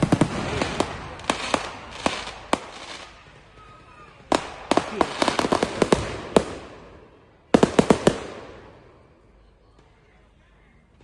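Fireworks going off in three rapid clusters of sharp cracks and bangs, the last and loudest about three-quarters of the way through, then dying away.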